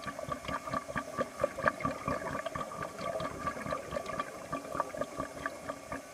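Scuba diver's exhaled bubbles gurgling and crackling as they leave the regulator underwater, one long breath out that starts and stops abruptly.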